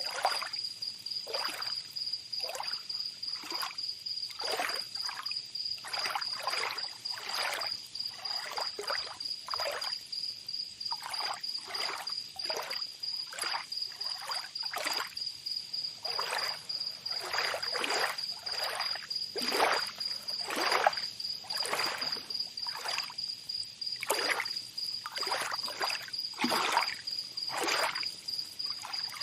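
Tropical beach ambience: small waves lapping and splashing in short, irregular splashes, about one or two a second, over a steady high-pitched trill.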